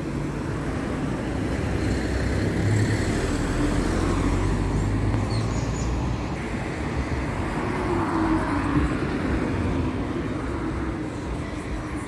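Cars passing on a road: a steady traffic rumble that swells as one vehicle goes by in the first half and another near the end.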